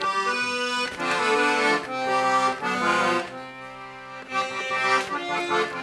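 Piano accordion playing a tune, with held chords and notes that change about once a second. It drops quieter a little past halfway, then comes back up.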